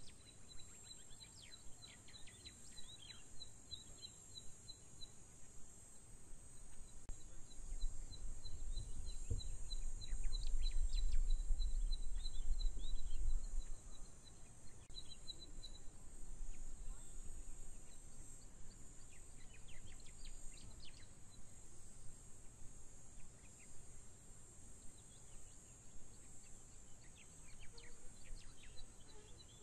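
Outdoor bush ambience: a steady high-pitched insect hiss, with trains of rapid chirping ticks and scattered short falling chirps. A low rumble swells from about eight seconds in and stops sharply near fourteen seconds.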